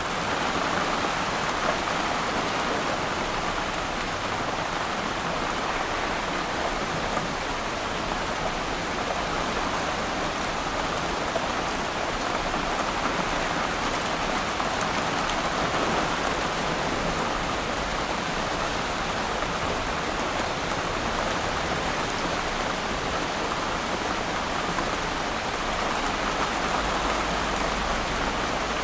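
Steady rain falling on water, an even hiss of many drops, with a low rumble coming in near the end.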